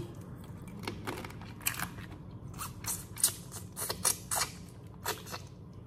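Boiled crawfish shells cracking and snapping as they are peeled and eaten: a run of sharp, irregular clicks with some chewing.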